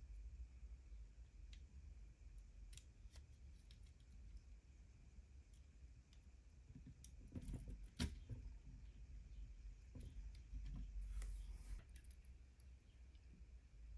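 Faint scattered clicks and taps of a 1/12 scale plastic model motorcycle's front fork assembly being handled and fitted to the frame, with one sharper click a little past halfway and a short stretch of handling noise after it.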